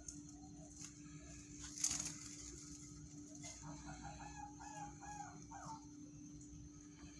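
A sogon songbird calling a run of quick, rough notes for about two seconds, starting about three and a half seconds in, over a steady low hum. A single sharp knock comes near two seconds in.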